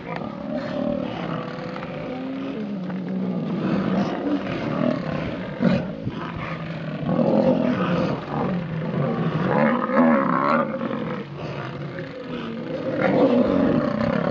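Several large wild animals growling and bellowing over one another, deep calls that swell and fade, loudest around the middle and near the end.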